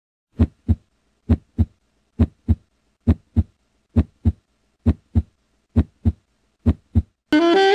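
Heartbeat sound effect: eight steady lub-dub double thumps, about 0.9 s apart. Near the end, jazz music with saxophone comes in.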